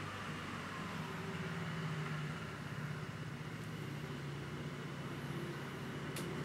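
Steady low background hum with a faint haze of noise above it, and one small click near the end.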